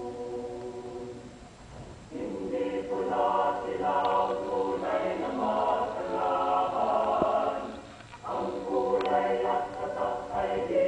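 Mixed choir singing a cappella: a soft held chord fades away about a second and a half in, then louder, rhythmic singing in several parts starts about two seconds in, with a brief break near eight seconds before it resumes.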